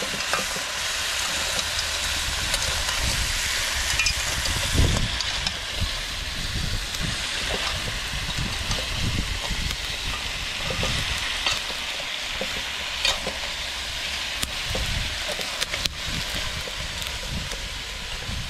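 Blue crabs sizzling in curry sauce in a pot over a charcoal fire, stirred with a metal fork that clicks and scrapes against the pot now and then.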